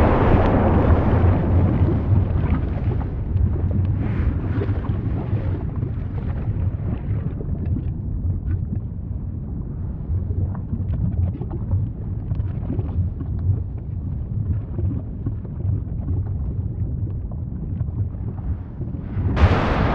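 Volcanic eruption: a deep, continuous rumble with scattered crackles and pops. It eases off over the first several seconds, then a loud new surge of eruption noise breaks in just before the end.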